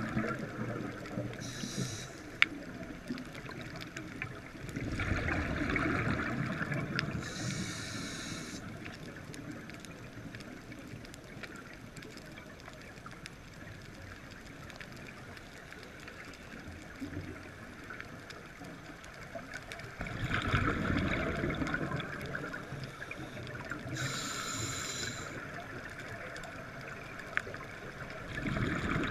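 Scuba diver breathing through a regulator, heard underwater. About three slow breaths, each a long bubbling exhale followed by a short hiss as the regulator feeds the inhale.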